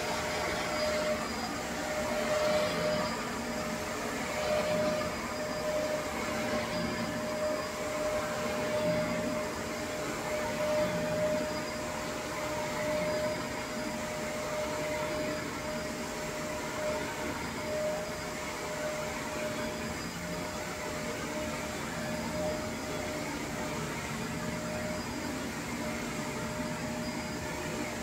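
Shark upright vacuum cleaner running steadily as it is pushed back and forth over carpet, a constant motor hum with a steady whine. Its level rises and falls a little in the first half.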